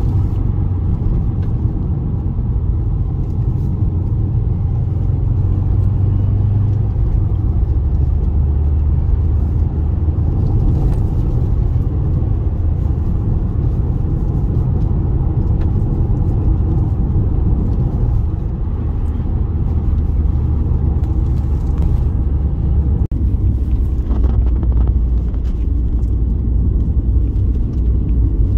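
Car driving along, a steady low rumble.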